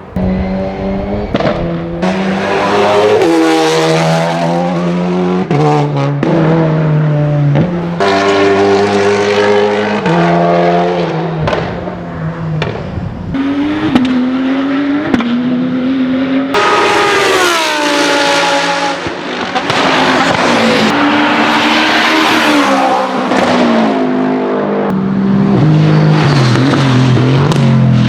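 Competition car engine and exhaust under hard driving, revving up and dropping back again and again through gear changes. Sharp exhaust pops come in between, with the loudest bang about 14 seconds in.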